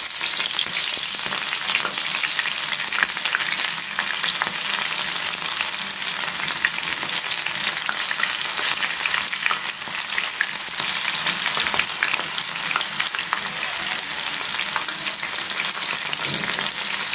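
Sweet corn kernels coated in rice flour and corn flour deep-frying in a pan of hot oil: a steady sizzle thick with fine crackles.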